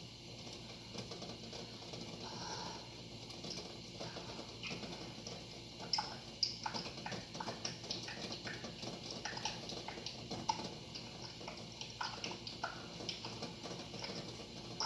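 Pot of water with eggs in it, heating or boiling: a steady hiss with many small, irregular pops and clicks, busiest through the middle of the stretch.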